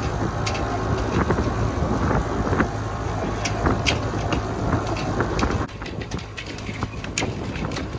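Boat under way with wind buffeting the microphone over a steady low hum, with scattered small knocks; the sound drops suddenly in level a little over halfway through.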